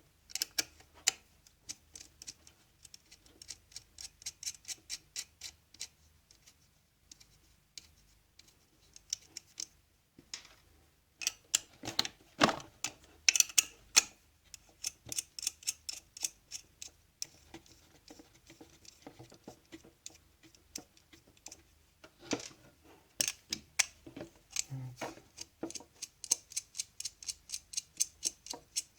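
Runs of quick, light metallic clicks, several a second, from a hand tool turning out the bolts that hold a Saeco Poemia espresso machine's boiler. The runs pause briefly now and then.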